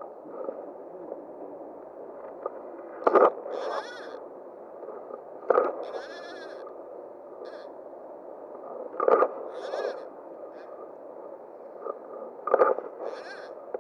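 Fly casting with a fly rod: four times the line swishes through the air with a sudden loud sweep, each followed about half a second later by a short rasping zip of line running through the rod guides, over a steady background rush.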